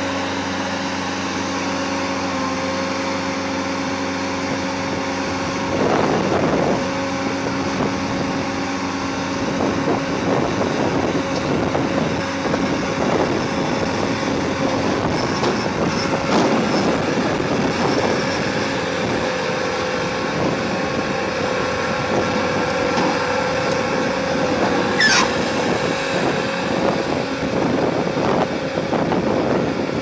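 Bobcat skid-steer loader's diesel engine running with a steady drone, growing rougher and busier from about six seconds in as the machine works. A brief high squeal comes near the end.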